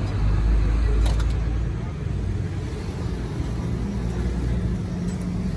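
Steady low rumble of an idling vehicle engine running nearby, with two short clicks about a second in.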